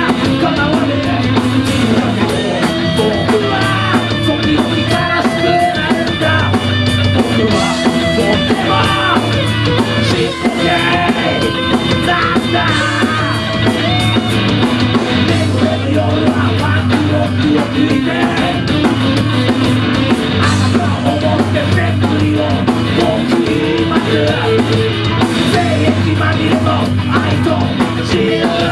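Live rock band playing loudly and steadily: acoustic guitar, electric guitar and drum kit.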